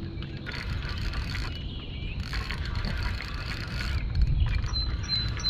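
Spinning reel being cranked in two spells, winding in a hooked fish on the line.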